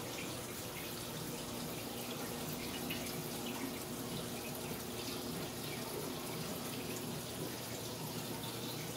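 Aquarium water trickling and splashing steadily, the circulating flow of the tank's filtration, over a faint low steady hum.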